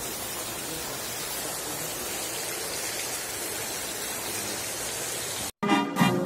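Indoor fountain's water splashing into its basin, a steady hiss. About five and a half seconds in it cuts off abruptly and music with brass begins.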